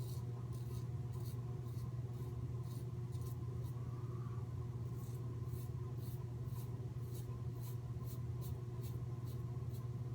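Merkur 37c slant safety razor with a Derby blade scraping through lather and stubble against the grain, in short strokes about two or three a second with a pause about halfway through. A steady low hum runs underneath.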